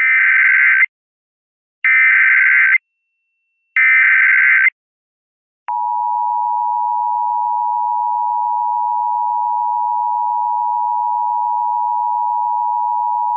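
Emergency Alert System header and attention signal: three identical electronic data bursts, each just under a second long and about two seconds apart, then from about six seconds in the steady two-tone EAS attention tone.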